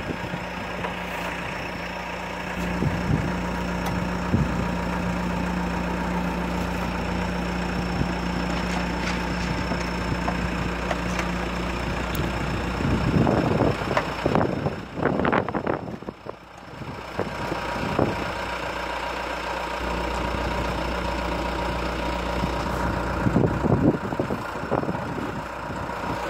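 Diesel engine of a red wheeled loader running steadily, with a few short knocks in the first seconds. Its low hum falls away for a few seconds about halfway and then comes back.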